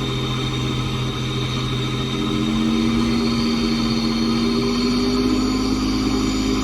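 Ford 3.5 EcoBoost twin-turbo V6 truck engine running with a high turbo whistle over the engine note. About two seconds in the engine note strengthens and slowly climbs, and a second later the whistle rises in pitch with it.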